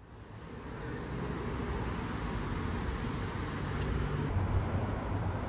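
City road traffic heard through an open car window: a steady rumble of engines and tyres with road noise, rising over the first second and then holding steady.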